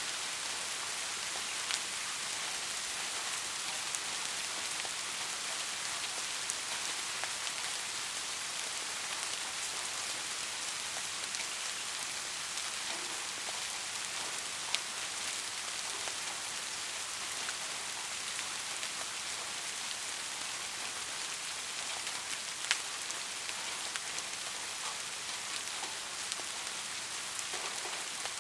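Steady rain: an even hiss of falling drops, with now and then a single sharper drop tapping close by.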